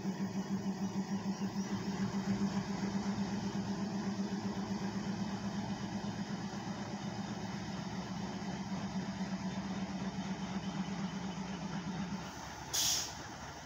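WDG3A diesel locomotive's ALCO engine running with a steady low hum that pulses rhythmically as the locomotive pulls slowly past. The hum drops away about twelve seconds in, followed by a short burst of hiss.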